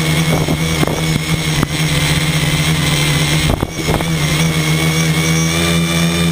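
A V-tail tricopter's brushless electric motors and propellers running in flight, heard close up from its onboard camera: a steady hum of several tones with a high whine on top. The sound briefly drops and stutters about three and a half seconds in.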